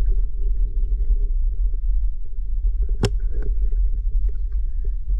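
Underwater sound through a submerged camera: a steady low rumble with a faint hum, and one sharp metallic click about three seconds in from a carabiner being handled on the dive line.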